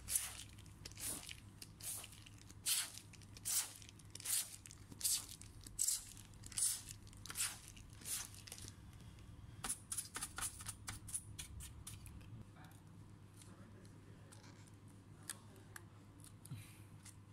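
A brush sweeping dust off a laptop's cooling fan and vent grille in short, scratchy strokes, about one stroke every three-quarters of a second, then a quicker run of shorter strokes about ten seconds in. After that only faint handling sounds.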